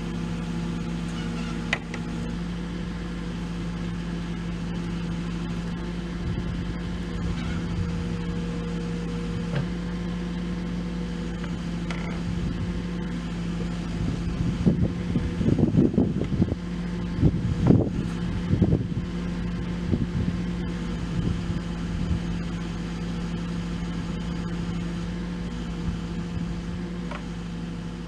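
Diesel engine of a CAT 308 excavator running at a steady speed, with a stretch of louder, irregular knocking and scraping about halfway through.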